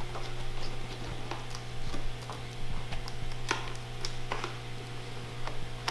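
Light, irregular ticks and clicks of a T10 Torx screwdriver and small screws as the screws holding an iMac's LCD panel are worked out, over a steady low hum.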